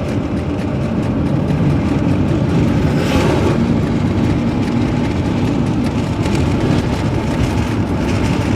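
Steady low rumble of a moving vehicle, engine and road noise heard from inside the cabin, with a brief hiss about three seconds in.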